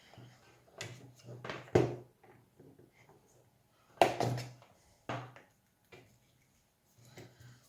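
Knocks and clatter of parts being handled and set down on a hard surface while a soldering station is unpacked: a series of sharp taps, the loudest about two and four seconds in.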